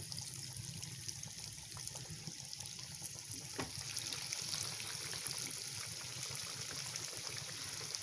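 Hot oil sizzling and crackling steadily as vermicelli-coated banana fritters deep-fry in a kadai, with a light tap about three and a half seconds in.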